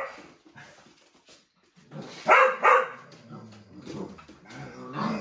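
A springer spaniel puppy and an older spaniel play-fighting: two sharp barks in quick succession about two seconds in, then low growling near the end.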